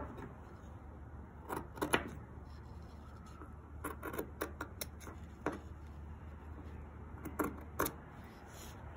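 Scissors cutting a long strip from a sheet of felt: a series of short snips and clicks as the blades close, coming in irregular bunches.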